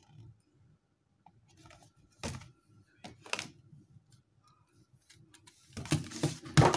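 Plastic over-ear headphones and their cardboard box being handled: scattered clicks and knocks, two sharper ones a little past two and three seconds in, then a louder burst of knocking and rustling near the end.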